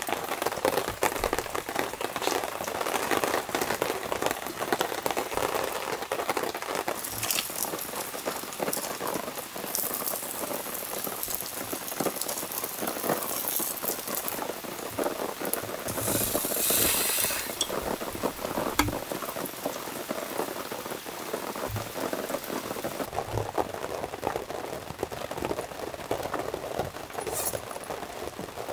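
Steady rain pattering on a tent, a dense crackle of many small drops, with a brief louder hiss about halfway through.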